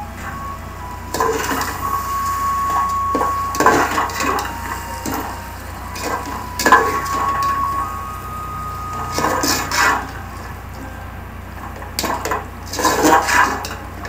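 A metal spoon stirring chicken pieces through curd and masala in an aluminium pot: wet squelching and scraping in uneven strokes, with sharp clinks where the spoon knocks the pot, loudest about a third of the way in, halfway and near the end.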